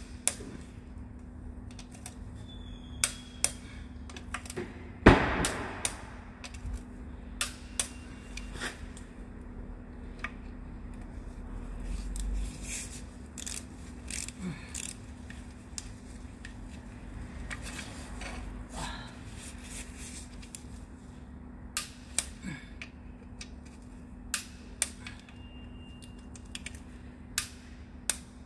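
Hand tools on an engine's sump bolts: sharp metal clicks at irregular intervals, typical of a torque wrench clicking off as the bolts are checked at 25 to 30 newton-metres. There is one louder clank about five seconds in, over a steady low hum.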